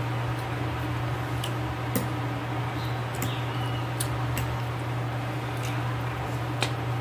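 Eating at close range: a scattering of short sharp clicks of a fork against a plate and mouth noises of chewing, over a steady low hum.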